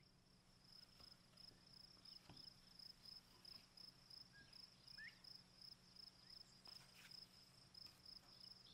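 Faint cricket chirping steadily, an even high-pitched pulsing several times a second, with one short rising chirp about five seconds in.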